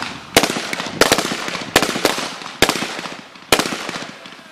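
Gunshots on an outdoor firing range: about five sharp shots spaced roughly a second apart, each followed by an echoing tail.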